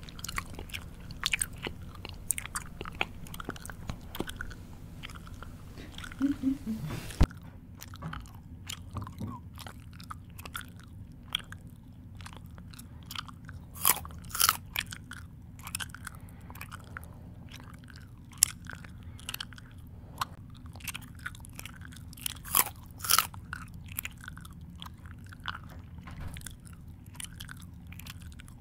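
A person chewing food with the mouth open, with irregular wet smacks and crunches, louder clusters of crunching near the middle and about three-quarters of the way through.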